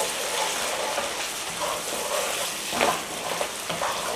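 Chicken curry sauce sizzling in a frying pan as a wooden spatula stirs it, with a couple of short scrapes of the spatula against the pan about three seconds in.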